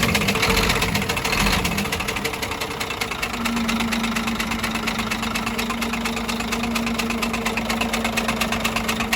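Scania DC13 inline-six diesel truck engine running at idle with a rapid, even knock. The knock is from the fifth cylinder: typical of a worn camshaft, a broken connecting-rod small-end bushing or a damaged big-end bearing shell. A steady hum sets in about three seconds in.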